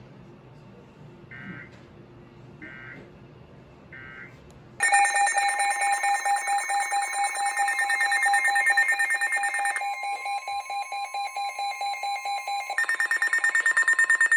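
Emergency Alert System attention signal: a loud, steady two-tone alarm that sounds about five seconds in, after three faint short beeps, marking the start of a new warning broadcast. Its tone changes briefly around the middle and then returns.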